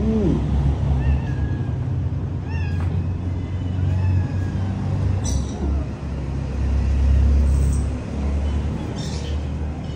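Several short, high animal calls in the first half, over a steady low rumble that swells a little past the middle. There are two brief sharp clicks, one a little past halfway and one near the end.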